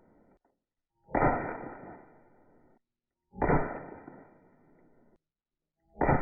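The same sharp hit repeated three times about every 2.3 seconds. Each one dies away over about a second and a half, with dead silence between, so it is a single edited sound looped or replayed.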